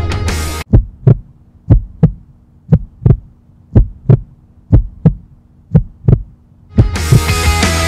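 Heartbeat sound effect: six lub-dub double thumps, about one pair a second, over a faint low hum.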